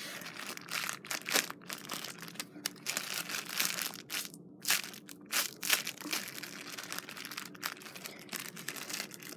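Clear plastic wrapper of a squishy toy crinkling as it is handled in the hand, in a run of irregular crackles.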